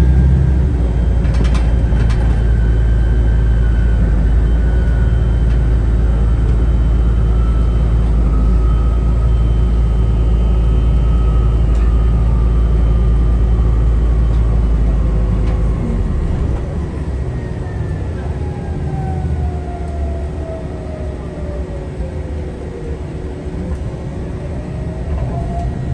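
Inside a city bus under way: a steady low rumble of engine and road, which eases about two-thirds of the way through, with a faint whine that falls in pitch as the bus slows and rises again as it pulls away near the end.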